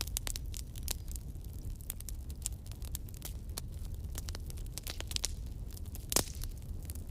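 Wood campfire crackling, with many sharp snaps over a steady low rumble and one louder pop about six seconds in.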